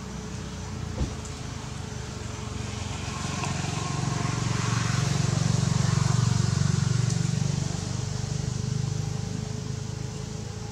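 Low engine hum of a motor vehicle passing by, swelling to its loudest about six seconds in and then fading away.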